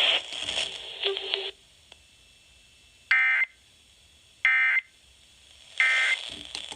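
Emergency Alert System end-of-message code: three short bursts of SAME digital data tones, about 1.3 seconds apart, marking the end of the broadcast warning.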